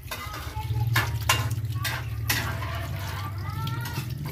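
Water splashing in a stainless steel sink as a milkfish is rinsed and handled, with several sharp knocks and splashes over a steady low hum.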